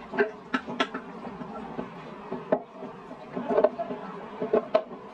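Chopsticks knocking and scraping against a stainless-steel bowl as mapo tofu is worked out of it onto a plate of noodles: a few sharp clicks close together near the start, then more scattered ones later.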